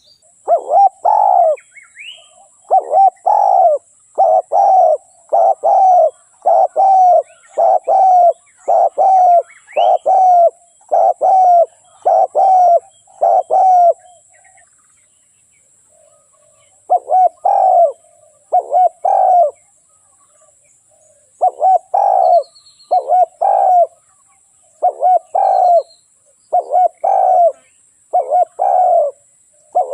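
Spotted dove cooing: a long run of short coos, about one every 0.7 seconds. They break off for about three seconds halfway through, then start again.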